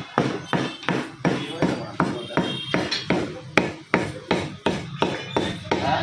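Butcher's cleaver chopping mutton, steady rapid chops about two to three a second.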